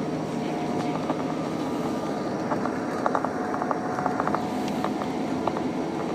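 JR 115-series electric train running along the track with a steady rumble. A cluster of short sharp clicks and rattles comes in the middle.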